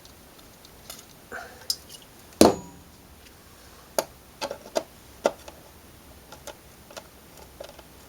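Irregular clicks and taps of a screwdriver working a rusted-in mirror-housing screw, with one louder clack and a short ring about two and a half seconds in.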